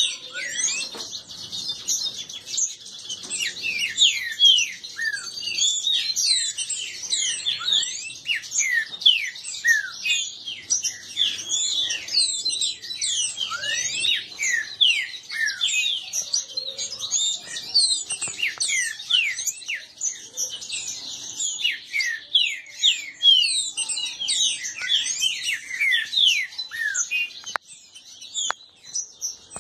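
Green-winged saltators (trinca-ferro) singing in fast, overlapping whistled phrases made of many quick falling notes, a counter-singing duel between caged males. The song thins out near the end.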